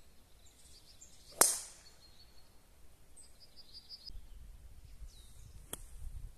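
Golf club striking the ball on a tee shot: a single sharp crack about a second and a half in, fading quickly. Faint bird chirps follow, with wind rumbling on the microphone later on.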